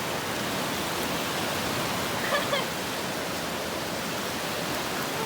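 Steady rushing noise of sea surf washing on the beach, with faint voices briefly about two seconds in.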